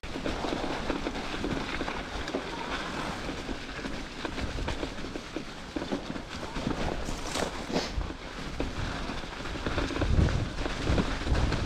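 Cube mountain bike being ridden over a wet forest trail: tyre noise on the ground with frequent small rattles and knocks from the bike over bumps, and wind rumble on the microphone, heavier for the last couple of seconds.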